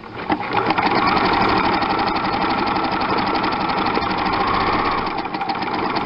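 Electric sewing machine stitching a zigzag seam through stiff latch hook canvas and furnishing fabric: rapid, even needle strokes over the motor's hum. It starts about half a second in and runs steadily.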